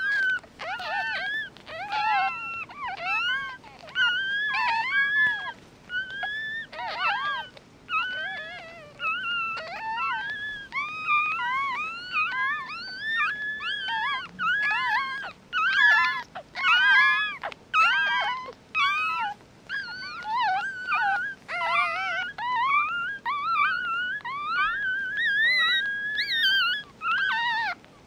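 A litter of newborn puppies crying and squeaking almost without pause, several short high-pitched cries overlapping, each rising and falling in pitch.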